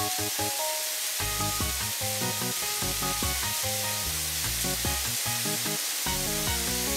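Steady hiss of water spraying from car-wash spray guns, over background music with a quick run of short notes.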